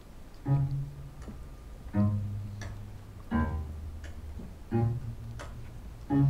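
Instrumental intro of the dance's backing music: a deep plucked bass note about every one and a half seconds, each ringing on, with a light tick between them.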